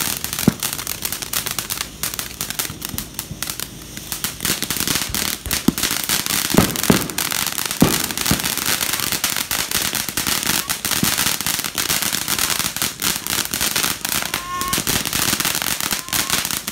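Ground fountain firework spraying sparks with a dense crackling hiss, quieter for a moment about two to four seconds in. Sharp pops stand out now and then, a cluster of them around seven seconds in.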